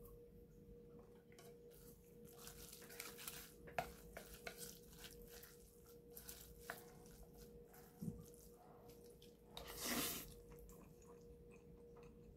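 Faint scattered clinks and taps of chopsticks against a metal pot while someone eats noodles, with one short louder noisy burst about ten seconds in, over a faint steady hum.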